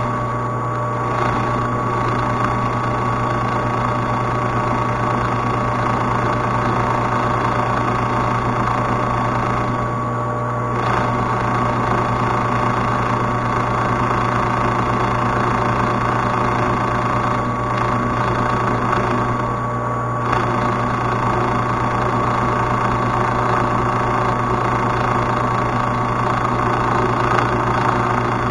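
Metal lathe running steadily while a grooving tool cuts a slot in the spinning workpiece: a steady hum with a thin high whine over it. The sound dips briefly twice, about a third and two-thirds of the way in.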